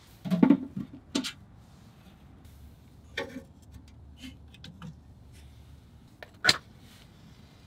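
A few separate knocks and clicks: a loud pair in the first second and a loud single knock about six and a half seconds in, with quieter ticks between.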